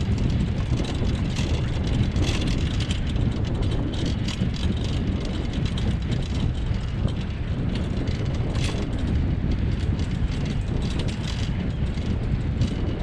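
Wheels of a dryland rig pulled by a husky team, rolling over a rough dirt forest track: a steady low rumble with many small clicks and rattles.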